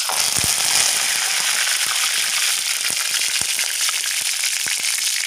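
Curry leaves dropped into hot oil with popped mustard seeds in a kadai, setting off a sudden loud sizzle that carries on steadily with many scattered crackles and pops.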